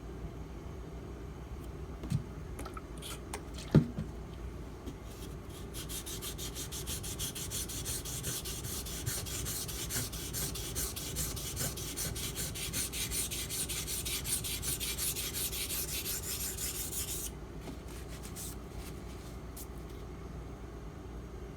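Steel knife blade of a Spyderco Salt (H1 steel) being stroked rapidly back and forth on a wet water stone: a steady, fast scraping rasp. It starts about six seconds in and stops abruptly a few seconds before the end. A couple of sharp knocks come early on, and a few light clicks after the strokes stop.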